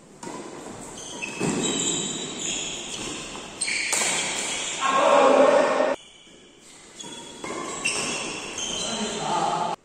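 Badminton doubles rally on an indoor court: shoes squeaking on the court surface, a racket hitting the shuttlecock sharply about four seconds in, and players' voices calling out, loudest around five seconds in. The sound cuts out abruptly for a moment about six seconds in.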